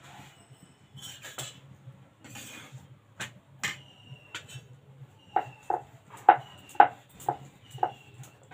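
Kitchen utensils knocking and clinking, a few scattered knocks at first and then a steady run of about two knocks a second from about five seconds in, several with a short metallic ring.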